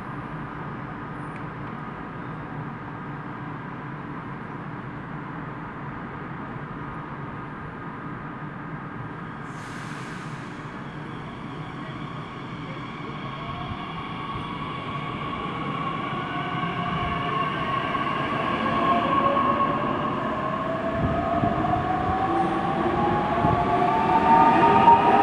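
Electric Talent 2 regional trains at a station platform: a steady low rumble, with a short hiss about ten seconds in. From about halfway, the whines of the traction motors, gliding in pitch, grow louder as a train draws in close alongside and are loudest near the end.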